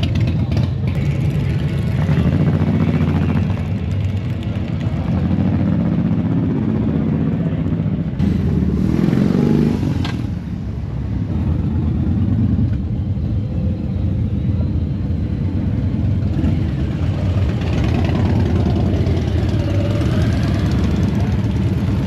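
Motorcycle engines running as bikes ride past, a steady low rumble. One bike revs up about nine seconds in, and another rev rises and falls near the end.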